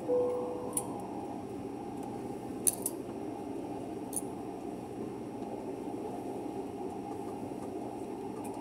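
Steady cabin hum of an Airbus A380 taxiing on the ground, heard from inside the passenger cabin. A single soft tone sounds right at the start and fades within about half a second, and a few light clicks follow over the next few seconds.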